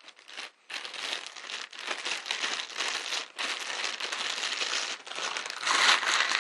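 Thin clear plastic bag crinkling and rustling on and off as a tripod inside it is handled and unwrapped, loudest near the end.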